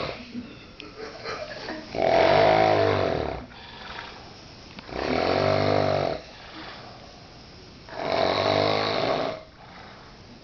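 A man snoring in his sleep: three loud snores, each about a second and a half long with a low rattling buzz, coming roughly every three seconds, with quiet breathing between them.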